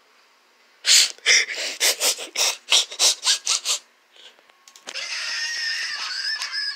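Handling noise as a plush toy is moved by hand: a quick run of rubbing, scraping strokes, about three a second, stops about four seconds in and is followed by a steadier rustle.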